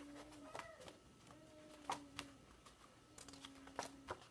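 Quiet handling of sheets of paper and card: a few soft rustles and taps spread out, with faint low tones coming and going in the background.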